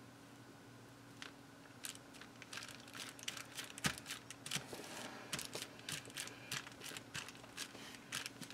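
Hands smoothing and pressing a sheet of thin translucent paper flat onto card, making light paper crinkling and crackling. It starts about two seconds in and gets busier toward the end.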